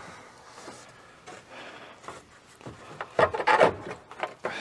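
Hands working behind a truck's plastic dash panel: wiring and plastic trim rubbing and scraping, with a burst of louder scraping and clicks about three seconds in as the loose headlight-switch harness connector is worked out from behind the dash.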